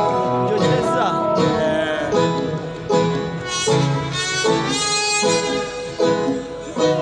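A live band playing an instrumental passage at a sound check, in short phrases of held notes.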